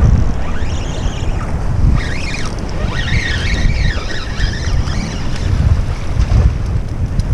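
Wind buffeting the microphone over surf washing against the jetty rocks, a steady low rumble, with a few high sliding tones rising and falling between about two and five seconds in.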